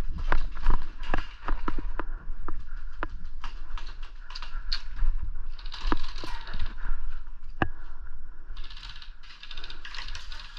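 Scattered sharp clicks and snaps of airsoft guns firing, uneven and fairly loud, with two short bursts of hiss about six and nine seconds in.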